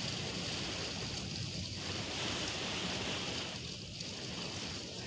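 Heavy rain falling steadily in a windy storm: a continuous, even wash of noise.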